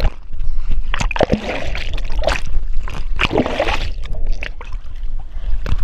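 Water splashing and sloshing close to the microphone in irregular loud bursts, over a steady low rumble.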